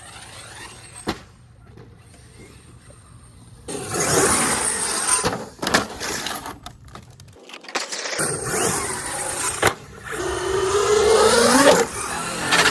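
Brushless electric drive of a Traxxas XRT RC monster truck (1250 kV 5690 motor on 8S) whining as the truck accelerates and slows, with tyre noise and a few sharp knocks. It is quieter for the first few seconds, then loud from about four seconds in, the whine rising and falling near the end.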